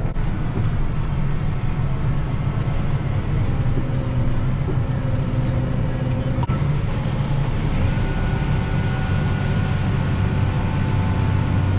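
Tractor engine running steadily with a low rumble; a thin, steady higher whine joins about eight seconds in.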